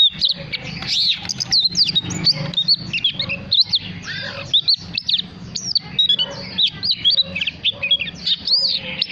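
Oriental magpie-robin singing a rapid, unbroken run of varied whistled notes that slide up and down in pitch.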